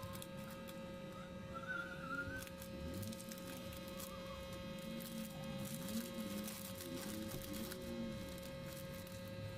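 A steady electrical hum holding a fixed tone, under light rustling and small clicks of paper stickers and plastic packets being handled and sorted by hand.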